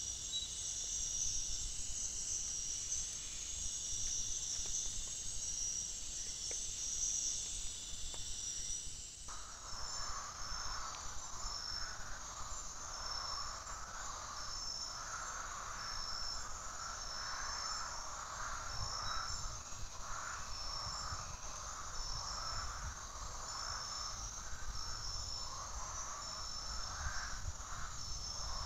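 Night forest insect chorus: steady high-pitched trilling. After about nine seconds it changes abruptly to another chorus, a high chirp repeating about every second and a half over a lower, pulsing band of calls.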